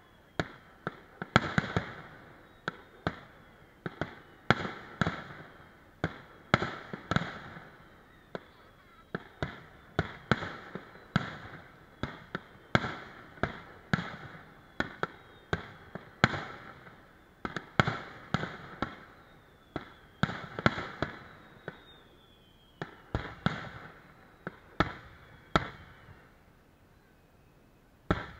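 Aerial fireworks bursting in quick succession, sharp bangs about two a second, each trailing off with a crackling, echoing tail. The barrage pauses briefly twice and ends with a single last bang.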